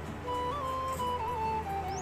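Background music: a flute playing a slow melody of held notes with small bends and ornaments over a steady low drone.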